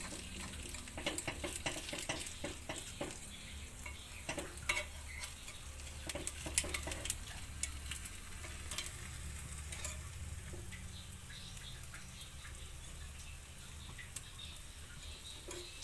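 Cooked banana cakes sizzling lightly in a hot multi-hole metal cake mold over a gas burner, while a metal spoon scrapes and clicks against the mold again and again to pry the cakes loose.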